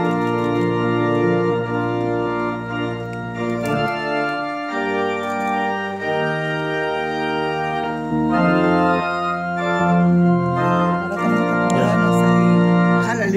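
Organ playing slow, held chords over a deep bass line, the harmony changing every second or two.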